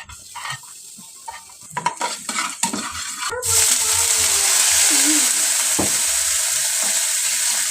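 A few clicks and knocks of a utensil on a pan, then about three and a half seconds in, food hits hot oil and starts to sizzle loudly, frying with a steady hiss.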